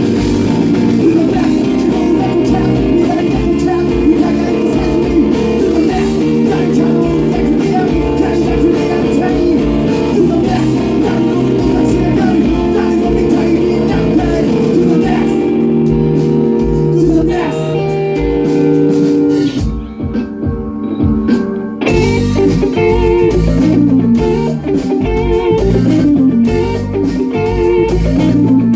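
Band music led by electric guitar over bass, in a blues-rock style. About two-thirds of the way through, the high end drops out for around two seconds before a picked guitar line comes back in.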